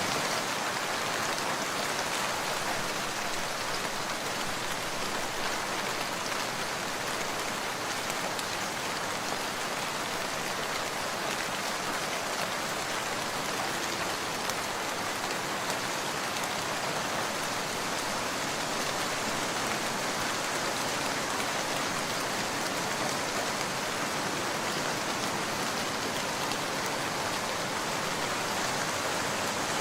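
Steady, even rain with a dense patter of drops.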